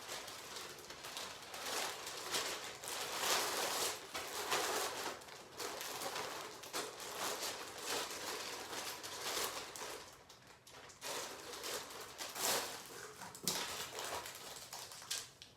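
Plastic packaging crinkling and rustling in irregular bursts as clothing is handled and unwrapped.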